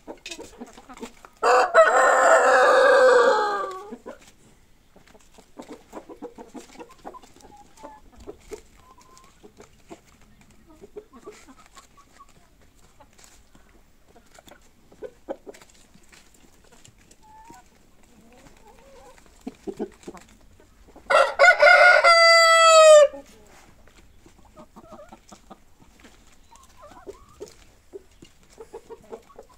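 A rooster crows twice, about twenty seconds apart, each crow lasting about two seconds, the second ending in a falling note. Between the crows, chickens cluck quietly amid light ticks.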